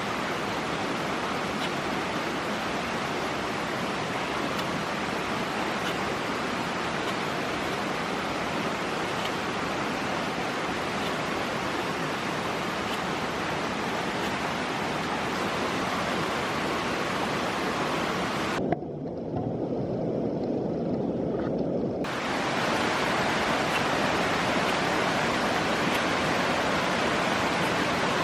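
Stream water rushing steadily. The sound turns dull and muffled for about three seconds past the middle, then comes back a little louder.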